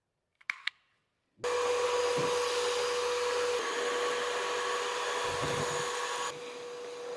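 Einhell cordless vacuum cleaner switched on: after a small click, its motor starts about a second and a half in and runs steadily with a whine over a rushing hiss of air, softening a little near the end.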